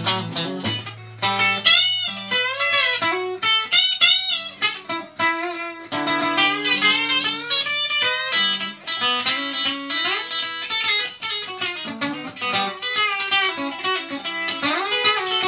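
Instrumental guitar break: a lead guitar plays a solo line with bent notes over a steady low bass note, with no singing.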